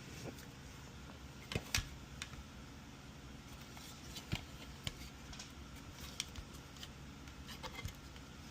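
Scattered light clicks and taps of test probes and small handling on a circuit board, loudest as a quick double click about one and a half seconds in, over a faint steady low hum.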